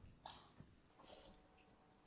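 Near silence, with a few faint short soft noises in the first second and a half.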